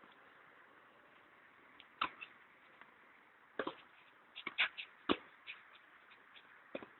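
Tennis ball being hit against a practice wall: sharp pops of racket strikes, the ball striking the wall and bouncing off the court. There are single loud hits about two seconds in and about five seconds in, with a quick run of smaller knocks between them.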